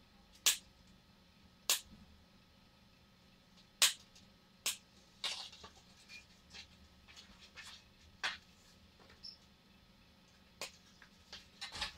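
Sharp clicks and snaps as the wires of an ATX computer power supply's harness are worked free: about four loud ones in the first five seconds, then softer, quicker ones, over a faint steady hum.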